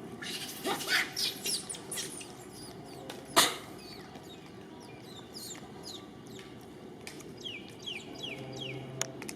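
Many short, high animal chirps and squeaks, each falling in pitch, coming in quick runs, with one sharp knock about three and a half seconds in.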